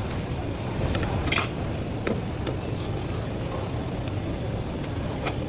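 Scattered clinks and taps of utensils and containers, about seven in all, the loudest about a second and a half in, over a steady low rumble of traffic.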